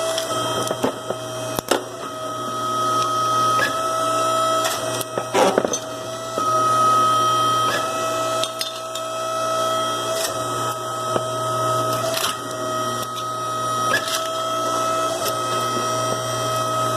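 Hand shears clicking and cracking as they break brass fittings off copper scrap, a string of short sharp snaps at uneven intervals. Under them, a steady whining hum from a running machine.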